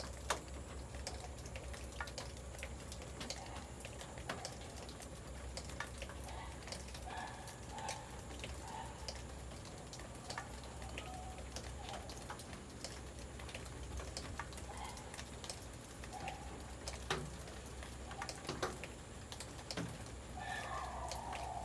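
Rain dripping: irregular drops tapping on nearby surfaces as scattered sharp clicks, over a steady low hum.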